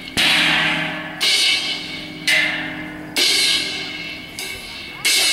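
Cymbal struck about once a second, each crash ringing and fading, over a low held chord from the accompanying band.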